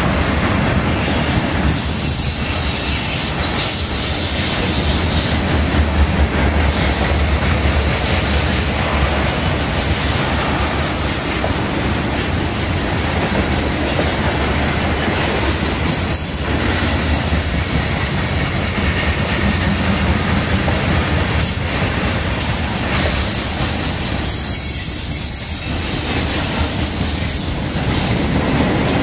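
Freight train of tank cars and covered hopper cars rolling past close by: a steady rumble and clatter of steel wheels on the rails, with high-pitched wheel squeal rising at times, most strongly near the start and again near the end.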